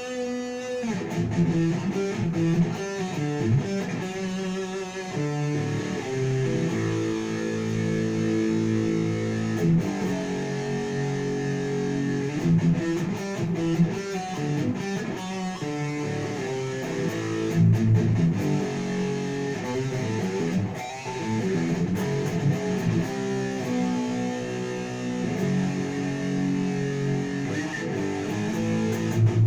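Jackson KVXMG King V electric guitar with active EMG pickups played through a Crate solid-state amp, with low-gain distortion, chorus and reverb; it plays continuous riffs with held notes and chords.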